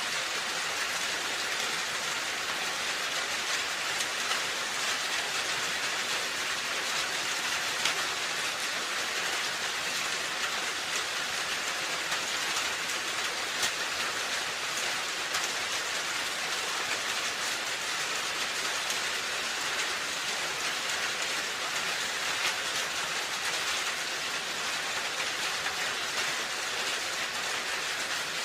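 Steady rain falling on a roof: an even hiss of many drops, with a couple of single louder drop hits standing out.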